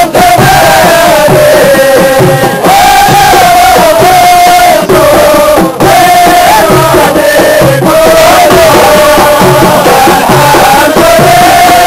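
A group of men chanting a qasida together without instruments, loud, holding long notes and breaking into short wavering ornamental turns.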